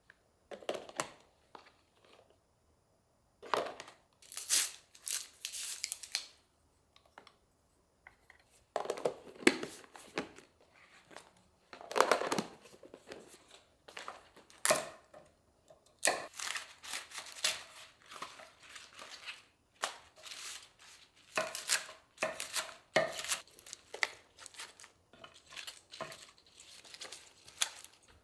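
Packaging rustling, crinkling and being torn open in irregular bursts with short pauses between them.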